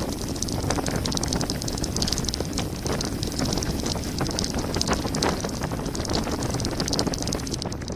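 Mountain bike descending fast on a gravel forest road: tyres crunching over gravel, the bike rattling with many quick clicks and knocks, and wind buffeting the microphone.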